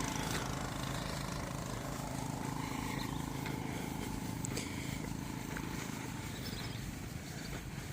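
A motor vehicle's engine running steadily, slowly growing fainter over several seconds.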